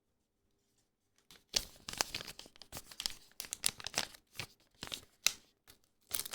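Trading-card booster pack wrapper being torn open and crinkled, starting about a second and a half in as a quick run of crackling rips.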